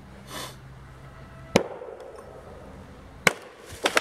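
Axe chopping into a tree trunk: two sharp, separate strikes about a second and a half apart, then a couple of lighter knocks near the end.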